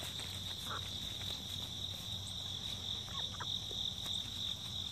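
Insects chirring steadily at one high pitch, with a few faint, short chicken clucks.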